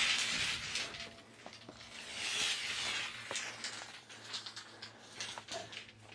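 A long steel rebar bar being handled and laid along the yellow plastic braces of ICF foam forms: two stretches of scraping, then a few light clicks and taps.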